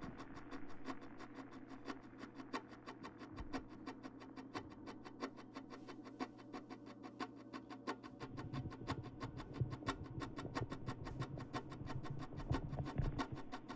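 Beer fizzing: a rapid, irregular crackle of tiny bubble pops, over a low steady hum that stops about eight seconds in.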